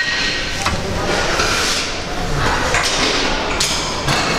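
Gym weight equipment being worked: a sharp metal clank, then short scraping, sliding noises about once a second.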